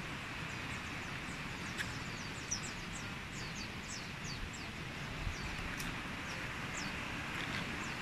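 A bird calling: a quick run of short, high notes, each sliding downward, for several seconds, over a steady outdoor hiss.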